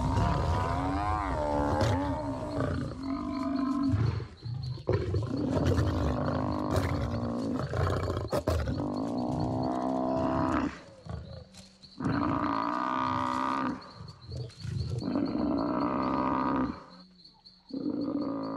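Lions growling while attacking an African buffalo, mixed with the buffalo's long, bending bellowing calls. The calls come in several long bouts with short pauses between them.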